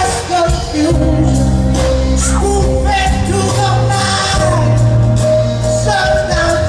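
Live band playing a slow rock song with a male lead vocalist singing long, gliding held notes over sustained bass and cymbals, heard as an audience recording in a large hall.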